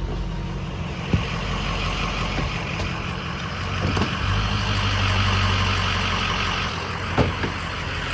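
Freshly rebuilt Ford Powerstroke V8 turbo-diesel running steadily near idle, heard from inside the truck, with a few short clicks about 1, 4 and 7 seconds in.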